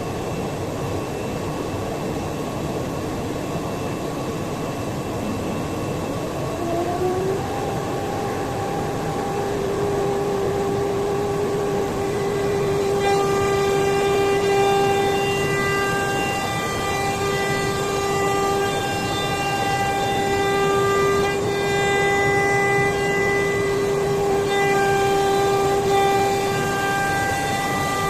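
CNC router spindle spinning up with a rising whine and then running at speed with a steady high-pitched whine over a constant hiss. About halfway through, more high tones and hiss join in.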